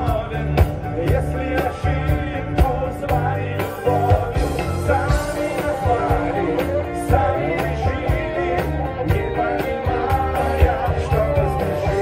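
Live pop-rock band playing through a PA system: electric guitars, bass, keyboard and a drum kit keeping a steady beat, with a voice singing over them.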